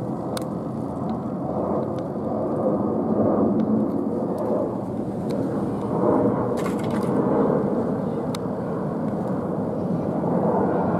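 Jet engines of an Airbus A320-214 (CFM56 turbofans) on landing approach with its gear down, passing low overhead: a steady rushing engine and airflow noise that swells slightly as it nears. A few brief clicks sound over it.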